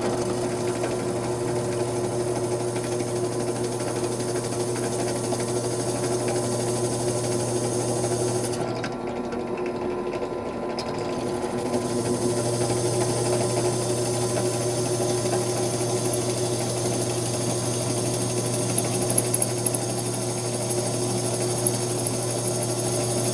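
Small bench drill press running steadily as its bit bores a hole into a brass rod. Its sound dips for about two seconds near the middle and then picks back up.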